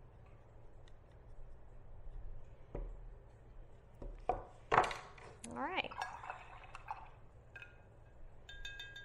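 Paintbrush knocking and clinking against a glass rinse-water jar: a few sharp knocks, loudest about halfway through, then a short ringing glass clink near the end.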